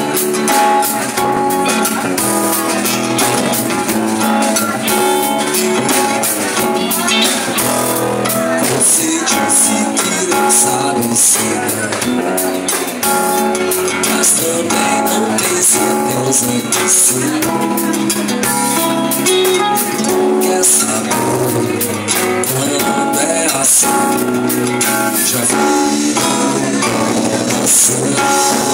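Live band playing a song: strummed acoustic guitar, electric guitar, and a drum kit with cymbals keeping a steady beat.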